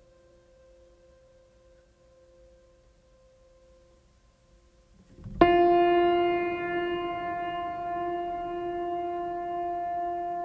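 Ship's horn sounding one long, loud, steady blast that starts suddenly about five seconds in, as the ship gets under way out of the harbour. Before it there are only faint steady tones.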